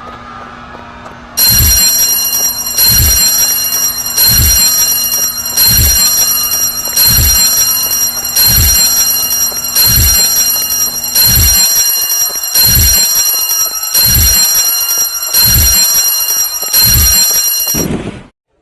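A loud electric alarm-bell ringing sound effect. It starts suddenly just over a second in and rings in about a dozen pulses, one every second and a half, each with a low knock, then cuts off abruptly near the end.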